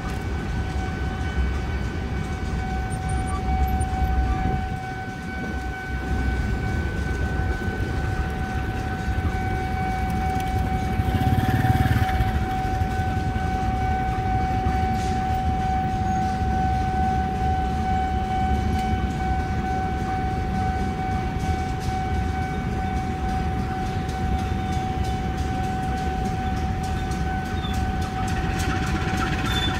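Diesel-locomotive-hauled passenger train running past: a low rumble with a steady high whine throughout, swelling louder about twelve seconds in, and faint rapid wheel clicks in the second half.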